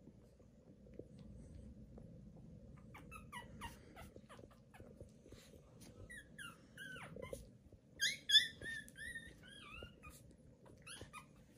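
Tiny 18-day-old Pomeranian puppies squeaking and whimpering in short, high-pitched calls that bend up and down in pitch, starting a few seconds in and loudest in a quick cluster about two-thirds of the way through.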